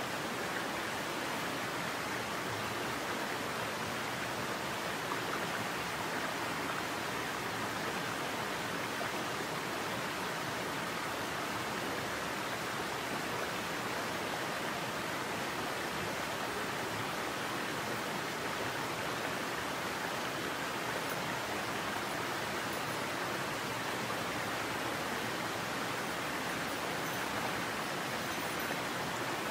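A mountain headwater stream running over rocks and small cascades, a steady wash of flowing water.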